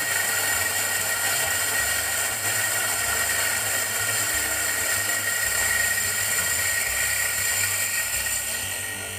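Nankai 600N electric burr coffee grinder running, its motor whirring steadily as it grinds coffee beans fine for espresso; the sound eases slightly near the end.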